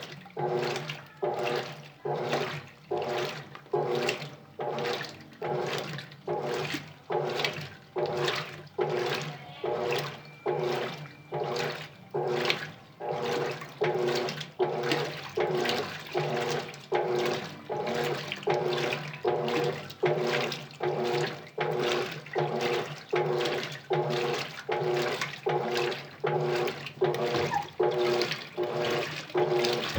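Colormaq LCA12 top-loading washing machine agitating: water sloshing in even surges a little over once a second, over a steady low hum.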